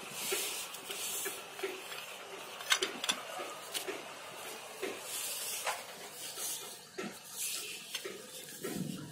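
Butterfly-chair frame tubes and their cross-shaped joint piece being handled and fitted together: scattered light knocks and clicks, the sharpest about three seconds in, with rustling of the woven plastic sheet under them.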